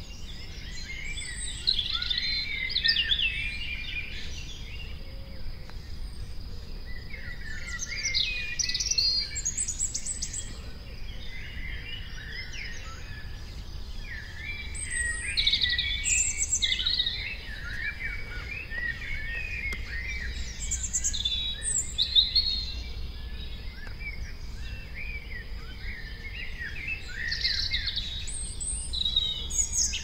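Several songbirds singing in short, overlapping phrases, in clusters every few seconds. Beneath them run a faint steady high tone and a low rumble.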